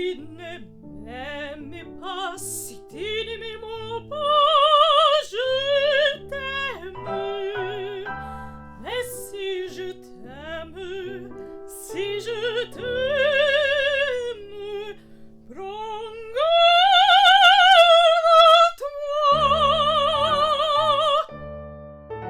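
A woman singing with a wide vibrato on long held high notes, over piano accompaniment. The longest and loudest held notes come about two-thirds of the way through.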